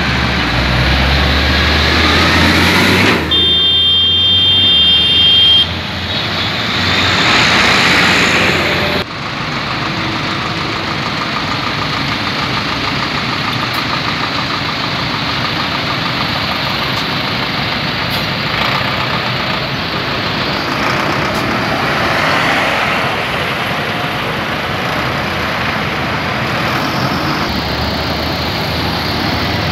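Diesel engines of a column of farm tractors running as they drive past one after another, with road and tyre noise. A brief high steady tone sounds about three seconds in, and the sound changes abruptly about nine seconds in.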